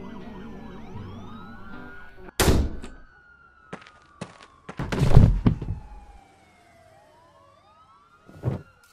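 Police sirens wailing in the background, with a heavy thunk about two and a half seconds in and a longer, louder thud around five seconds, then two softer knocks near the end.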